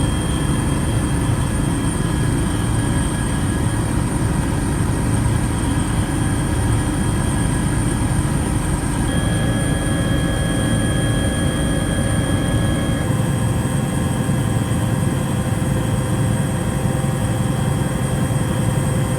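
Steady mechanical rumble and hiss with a few constant tones, shifting slightly twice, as at cuts between shots.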